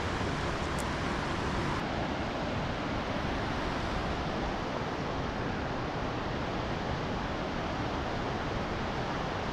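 Kootenai Falls on the Kootenai River, its whitewater rushing in one steady, unbroken sound.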